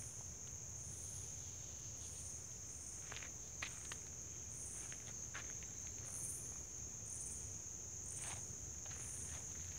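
A steady, high-pitched insect drone fills the woods, with a second insect call pulsing higher up about once a second. A few soft footsteps on the paved path are heard.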